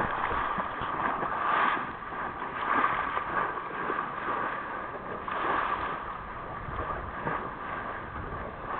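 Water rushing past the bow of a moving boat, with wind on the microphone, swelling and easing every second or two.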